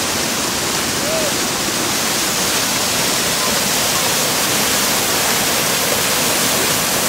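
Steady rushing and splashing of a small waterfall tumbling over rocks.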